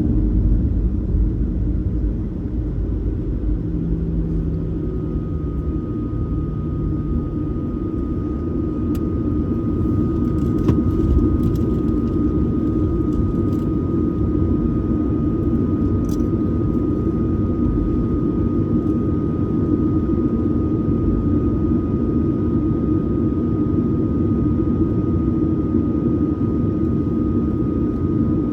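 Boeing 737-900ER cabin noise: steady jet engine and airflow rumble, with a steady high whine coming in about five seconds in and a few faint clicks.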